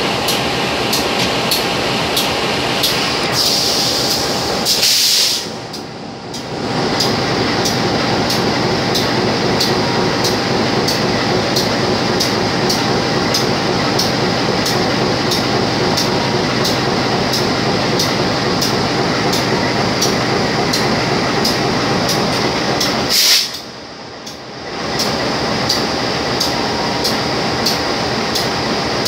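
Stationary diesel locomotive running steadily, with a regular light ticking over its engine noise. A short loud hiss comes about four seconds in and again about twenty-three seconds in, each followed by a brief drop in the sound.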